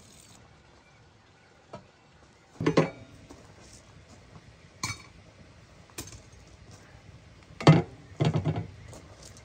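Cookware and dishes being handled: scattered knocks and clinks, with two louder bursts of clattering, one about two and a half seconds in and a longer one near the end.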